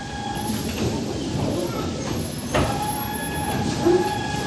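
A ride-on vehicle steered by a handle runs with a steady whine over a rumble, and there is a sharp knock about two and a half seconds in.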